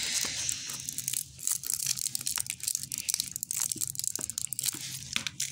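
Plastic packaging of a play-dough set crinkling and tearing as it is handled and opened, with many small crackles and clicks.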